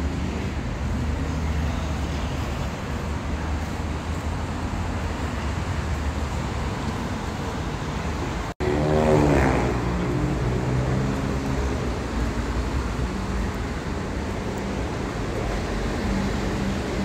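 Steady ambient rumble with a low hum, like city traffic noise. It cuts out for an instant about eight and a half seconds in, then a louder pitched sound comes up briefly.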